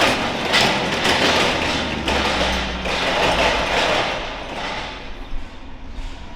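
Busy city street noise, a loud rushing and clattering with uneven surges that fades away over the last couple of seconds.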